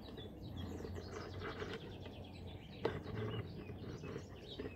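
Small birds chirping and twittering over a faint steady low drone from a distant tractor working the field, with a single sharp click a little under three seconds in.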